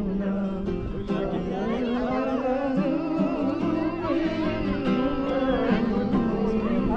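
A song playing: a singing voice carrying a melody over instrumental accompaniment.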